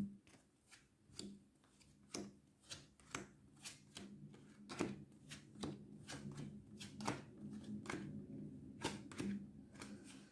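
Tarot cards being shuffled and laid out on a cloth-covered table: a faint run of irregular soft card flicks and taps.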